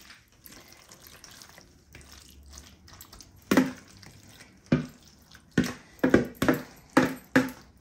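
Steel spoon scraping a wet, spiced chilli mixture out of a plastic mixing bowl onto a banana leaf. In the second half, about eight short, sharp taps of spoon against bowl, coming faster toward the end.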